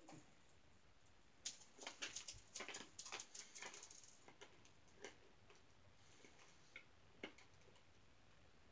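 Faint, irregular crunching of hard, crunchy fennel candy being chewed, densest for a couple of seconds near the start, then a few scattered clicks.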